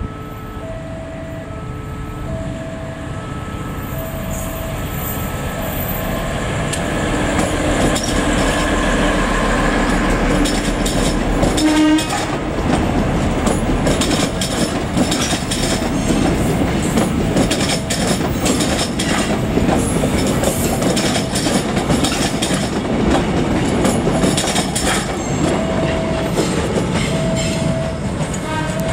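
A KRDI diesel multiple unit approaching and passing close by. Its running noise builds up, with a short horn note about twelve seconds in, then the wheels clatter over rail joints as the cars go past. A repeating beeping tone is heard at the start and again near the end.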